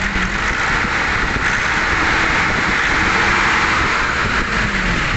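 Nissan NV350's diesel engine idling steadily with an even, unbroken running sound. It keeps running without stalling because the freshly replaced fuel filter and fuel lines were bled full of diesel.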